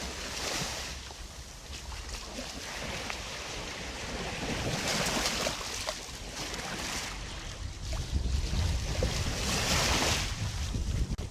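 Sea waves washing in, with wind buffeting the microphone. The surf hiss swells and fades, peaking three times about every five seconds.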